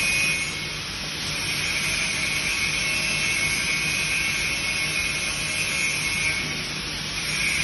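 Ribbon insert and pasting machine running: a steady mechanical noise with a high whine that swells and fades, over a low hum.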